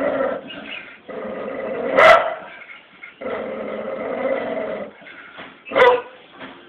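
A dog growling in long drawn-out stretches, broken by two short sharp barks, one about two seconds in and one near the end.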